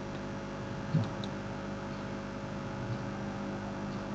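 Steady electrical hum and hiss of the recording's background, with a brief soft thump about a second in.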